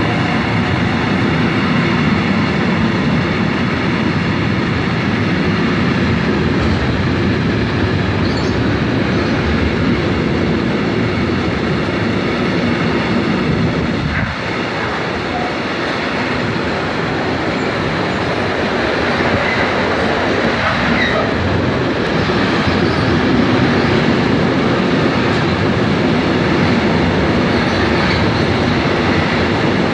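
Freight train of intermodal wagons loaded with truck trailers rolling through a station without stopping: a loud, steady rumble of wheels on rail.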